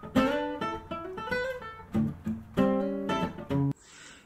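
Strummed acoustic guitar chords, a new chord every half second or so, stopping shortly before the end.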